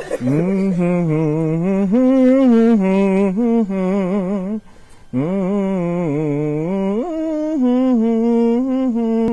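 A man humming a tune with his mouth closed, in long held notes, with a short break about halfway through.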